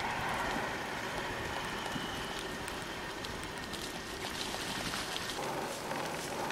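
Steady rush of wind on the microphone with tyre noise from a bicycle rolling along a paved road.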